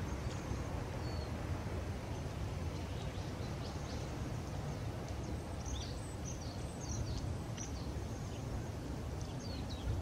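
Steady low outdoor rumble with a run of short, high chirps from small birds in the second half.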